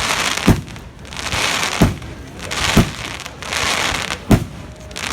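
Aerial fireworks going off: four sharp booming shell bursts about a second apart, with crackling and hissing swells in between.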